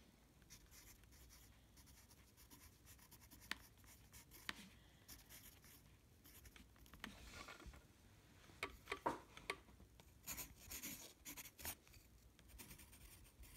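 Graphite pencil scratching across watercolour paper while lettering a title and signature: faint, in short irregular strokes that grow busier in the second half.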